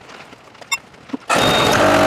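A few faint clicks, then about a second and a half in the Case 1845C skid steer's diesel engine is suddenly heard running steadily.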